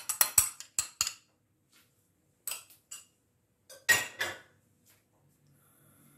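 Metal spoon tapping and scraping against a glass bowl as yogurt is scooped out into a pot: a quick run of clinks at first, then a few scattered clinks about two and a half and four seconds in.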